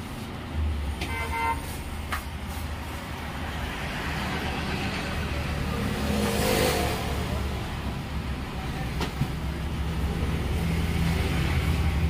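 Road traffic: a steady low engine rumble, a short horn toot about a second in, and a vehicle passing that is loudest about halfway through.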